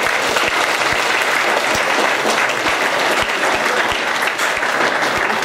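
A roomful of students applauding: dense, steady clapping from many hands.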